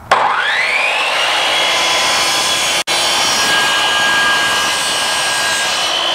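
Craftsman compound miter saw starting up, its motor rising within the first second to a loud, steady high whine while the blade is lowered slowly through a Trex railing rail. The sound cuts out for an instant about three seconds in, and the pitch begins to fall right at the end as the trigger is released.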